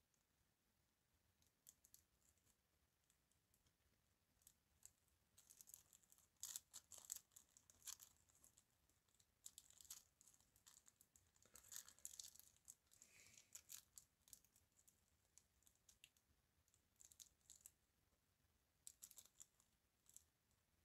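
Near silence: room tone with faint scattered clicks and rustling, thickest about six to eight seconds in and again around eleven to fourteen seconds.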